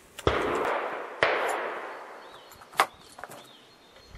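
Two loud gunshots about a second apart, each ringing off, then a sharp metallic clank as the single-shot break-action hunting rifle's breech is opened. Birds chirp faintly.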